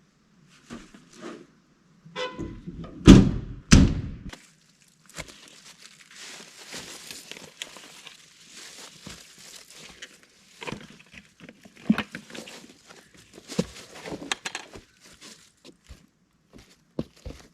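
Two heavy thumps about three and four seconds in, then a long stretch of rustling with scattered light knocks, as of garden gear and debris being handled.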